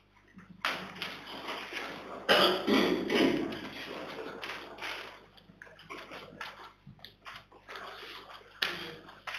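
Meeting-room handling noise: rustling and shuffling, loudest a couple of seconds in, then scattered light taps and clicks over a low steady room hum, with faint voices.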